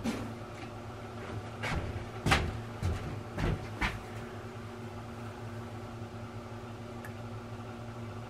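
A few light knocks and clinks of metal cookware and utensils being handled in the first four seconds, then a steady low hum.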